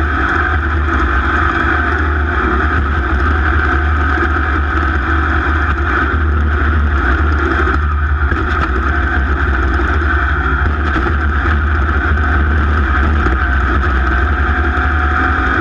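A racing vehicle's engine running steadily at high revs, with heavy wind buffeting the microphone.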